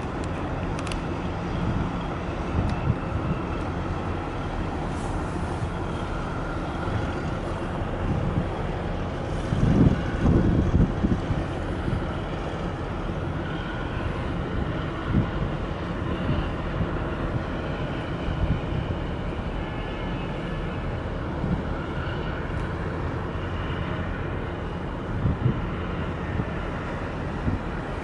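Steady low engine rumble across the harbour water as a large bulk carrier moves past with a tug in attendance. Short gusts of wind hit the microphone about ten seconds in and again near the end.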